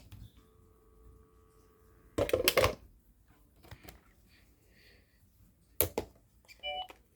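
Aprotech landline telephone being handled and its buttons pressed. There is a faint steady tone for the first couple of seconds, then a loud clatter. A sharp click comes near the end, followed by a short electronic beep from the phone.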